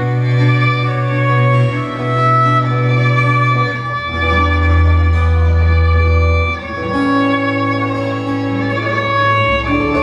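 Instrumental live music: a violin plays the melody over strummed acoustic guitar, with low held bass notes that change every few seconds.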